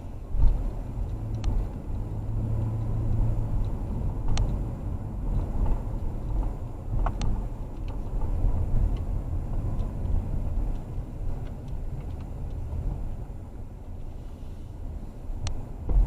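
Inside a car's cabin at low speed: steady engine and tyre rumble, with a few scattered sharp clicks and knocks.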